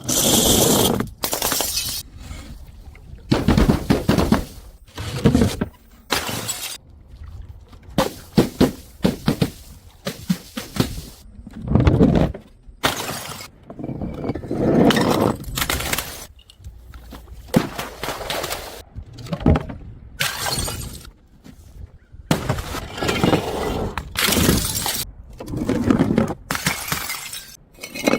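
Glass bottles smashing and shattering one after another: more than a dozen separate crashes, each a sudden burst of breaking glass with a brief tinkling tail.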